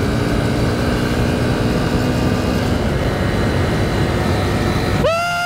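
Motorbike engine running under way, mixed with road and wind noise. A short higher-pitched tone cuts in near the end.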